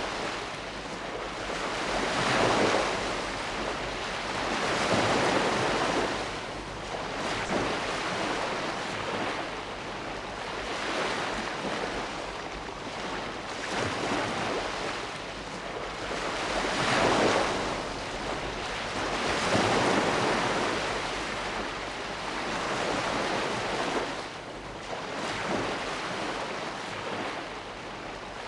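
Sea waves breaking and washing on the shore, the surf swelling and falling away in repeated surges every few seconds.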